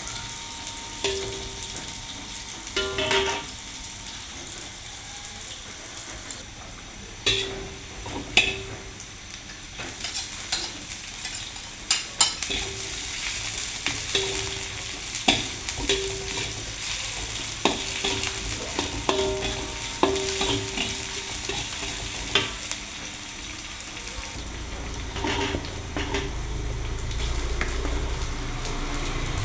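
Food sizzling in a hot frying pan while a metal spatula stirs it, with irregular sharp clicks and short scrapes against the pan. A low rumble joins near the end.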